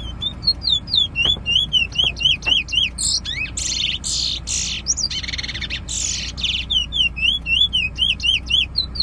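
Caged bullfinch (the seed finch of Trinidad song competitions) singing a fast string of clear, slurred whistles. About three seconds in a few loud, harsh buzzy notes break the string, then the whistling resumes. A low, steady car-engine hum runs underneath.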